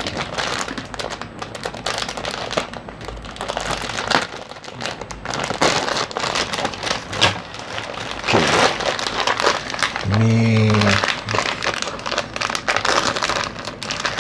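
Thin plastic snack wrappers crinkling and rustling as packets are handled and a small wrapped sweet is opened, with irregular crackles throughout. About ten seconds in, a brief low hum lasts about a second.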